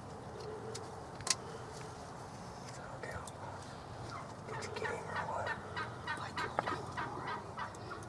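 Wild turkey gobblers gobbling in rapid, broken bursts from about three seconds in, with a single sharp click about a second in.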